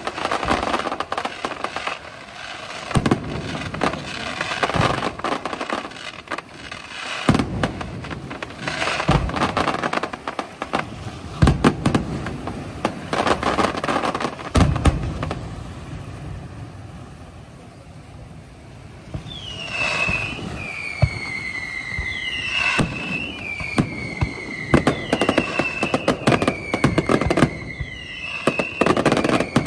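Fireworks display: rapid bangs and crackling of bursting shells and fountains. After a brief lull about two-thirds of the way through, a run of falling whistles, each starting with a bang, repeats every two to three seconds.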